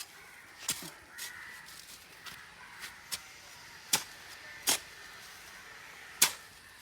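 A hoe chopping into paddy-field soil in about seven sharp, irregular strikes while digging for earthworms; crows caw.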